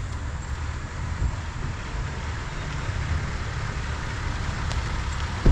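Heavy machine's engine running steadily with a low rumble as the Bobcat mini-excavator arrives. A brief falling tone cuts in right at the end.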